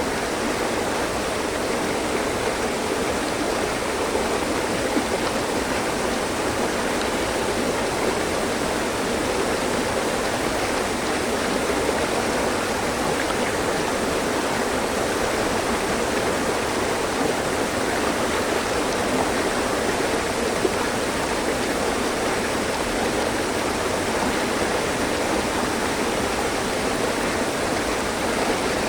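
Mountain stream flowing over rocks: a steady, even rush and gurgle of running water.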